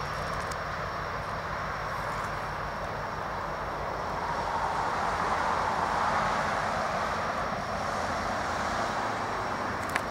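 Intermodal freight train's container cars rolling past, a steady rush of wheels on rail that swells a little about five seconds in. A single sharp click comes right at the end.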